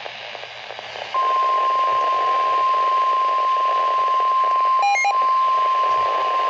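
Weather-radio static hiss, then about a second in the NOAA Weather Radio warning alarm tone starts: one steady, loud 1050 Hz tone over the hiss, signalling that a warning broadcast follows. A brief blip of other short tones cuts in about five seconds in.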